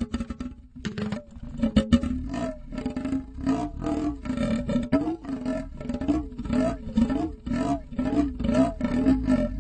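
Flexible saw blade being bent and flexed, giving a twanging, warbling tone whose pitch bends up and down in quick repeated waves, about twice a second. It is a comic cartoon sound effect.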